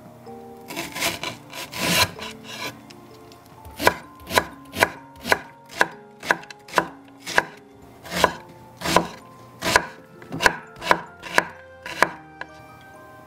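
Kitchen knife cutting Japanese long green onion and onion on a wooden cutting board. First comes a quick run of crunchy slices, then about two knocks of the blade on the board every second as the onion is minced.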